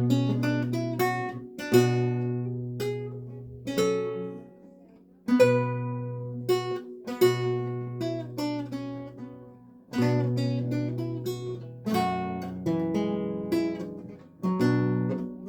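Renaissance lute played solo: a plucked melody ringing over low bass notes, in phrases that fade almost away about five seconds in and again near ten seconds before the playing picks up.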